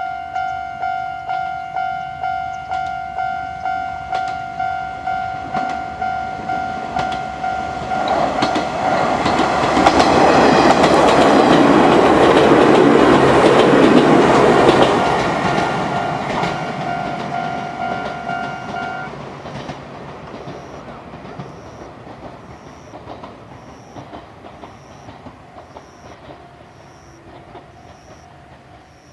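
A Japanese level-crossing alarm rings about twice a second while an Izuhakone Railway 7000 series electric train passes over the crossing. The train's running noise swells loud and drowns the alarm for several seconds. The alarm stops a few seconds after the train has gone by, and the train noise then fades away.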